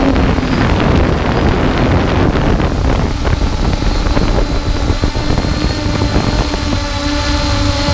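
Ghost quadcopter drone's motors and propellers humming steadily under heavy wind buffeting on the microphone; the hum comes through more clearly near the end as the buffeting eases.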